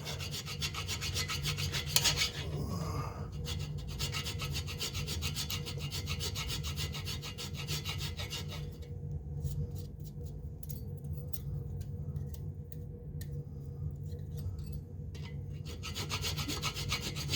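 A hand file rasping back and forth on metal in quick repeated strokes, taking a protruding pin down flush with the water pump mounting surface of a cast-iron 350 Chevrolet block. The strokes are lighter for a stretch in the middle.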